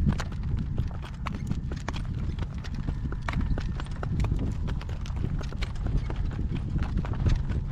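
Hooves of a young driving horse walking on a rough, rocky road: a steady run of irregular clip-clop strikes over a low rumble.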